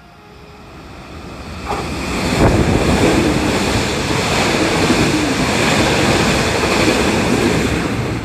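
Hankyu limited express train passing through the station at speed without stopping: a rush of wheels on rail and moving air that builds as it approaches, stays loud for several seconds as the cars go by, then eases off near the end.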